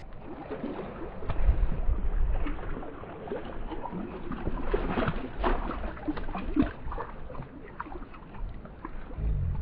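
Shallow water sloshing and splashing around a hand and a largemouth bass as the fish is let go in the shallows and swims off, with many small irregular splashes.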